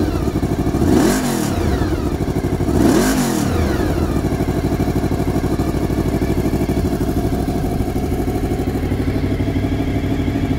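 Honda VFR750's V4 engine through a Delkevic aftermarket silencer, revved twice about one and three seconds in, each rev rising and falling back, then settling to a steady idle.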